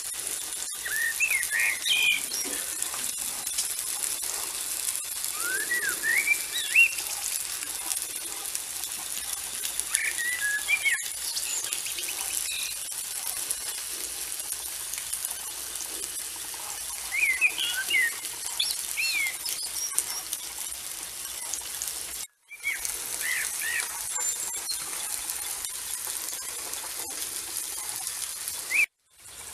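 Songbirds singing short chirping phrases every few seconds over a steady high hiss with faint crackling. The sound drops out briefly twice.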